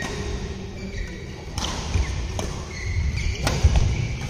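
Badminton players moving on an indoor court's synthetic mat: low footfalls, short shoe squeaks and about three sharp taps.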